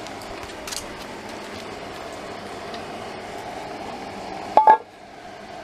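Steady outdoor background noise, then a short, sharp knock with a brief ring near the end.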